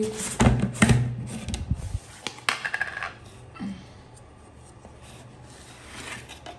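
Knocks and scraping as the lid is worked off a canister of washing powder, loudest in the first two seconds. Then quieter rustling as a hand scoops the powder out.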